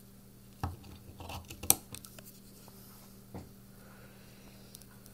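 An out-the-front automatic knife being handled: a few light clicks and scrapes, with one sharper click a little under two seconds in.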